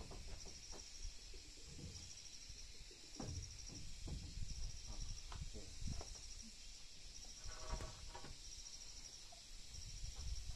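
Soft wooden knocks and shuffles as planks are handled and set down on a timber floor frame, over an insect chirping in short high trills about once a second.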